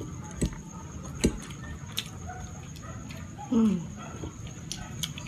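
Close-up eating sounds of fettuccine carbonara: a metal fork clicking against the plate a few times while twirling pasta, with wet chewing in between. About two-thirds of the way through comes a short falling pitched sound, the loudest moment.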